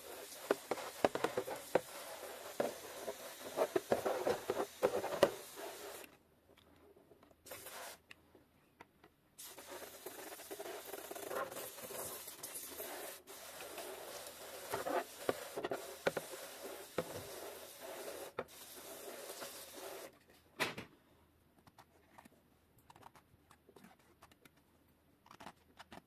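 A hand sprayer hissing as it sprays onto a perforated bicycle disc brake rotor held over a tub, with liquid pattering and dripping into the tub. The spray stops about six seconds in, starts again about three seconds later and stops around twenty seconds in.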